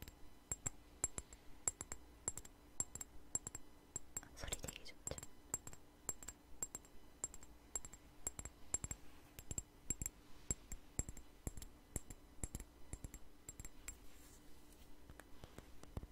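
Fingernails tapping quickly and irregularly on a glass perfume bottle with a flower-shaped cap, close to the microphone: soft, crisp glassy clicks with a bright ring. About four and a half seconds in, a short swish.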